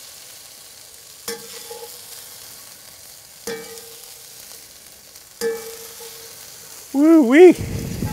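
Peppers and onions sizzling in a very hot pan with a steady hiss, while a utensil clinks against the pan three times, each clink ringing briefly. Near the end a man calls out a loud "Woo-wee!"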